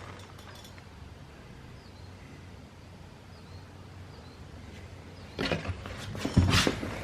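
Quiet background with a few faint high chirps, then two brief bursts of handling noise about a second apart near the end, from working at the motorcycle's oil filler while topping up the oil.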